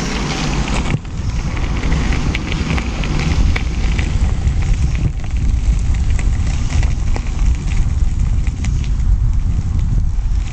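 Ninebot One E+ electric unicycle's tyre rolling over a gravel and dirt trail, giving a dense crackle of small grit ticks over a steady low rumble of wind buffeting the microphone.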